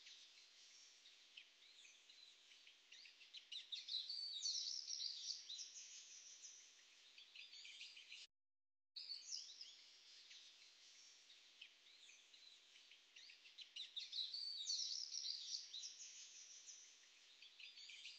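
Faint birdsong ambience of many small birds chirping. The track is a loop: it cuts out completely for about half a second roughly eight seconds in, then the same stretch of chirps starts over.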